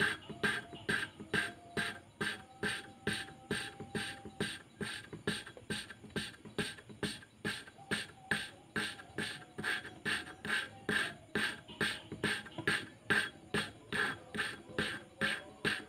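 A motorcycle valve being lapped into its seat in the cylinder head with grinding compound: the lapping stick is twisted back and forth, giving a rhythmic gritty rasp of valve face on seat, about three strokes a second.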